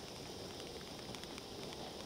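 9-inch conic firework fountain burning: a steady hiss of spraying sparks with faint scattered crackles.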